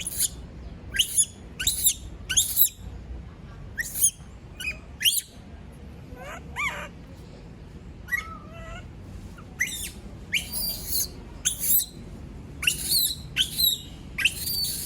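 Pet monkey screaming: a string of short, shrill, high-pitched shrieks, many sweeping down in pitch, coming in quick runs with brief pauses. They are distress calls at being left alone.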